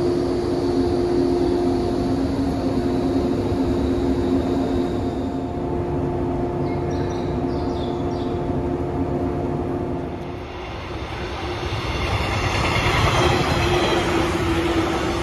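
JNR-type 115-series electric multiple unit humming steadily while standing at a platform. About ten seconds in, the sound gives way to a louder rushing noise of a 115-series train running past, wheels on rail.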